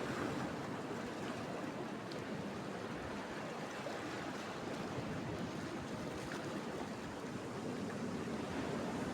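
Sea surf washing steadily, an even rush of water noise with no distinct breaks.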